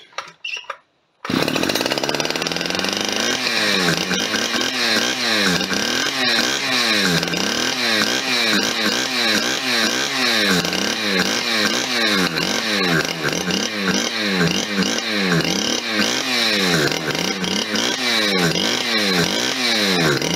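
Stihl 010 AV two-stroke chainsaw engine starts about a second in, revs up, then runs at high idle on its carburettor. Its speed surges up and down in a steady cycle about every three-quarters of a second.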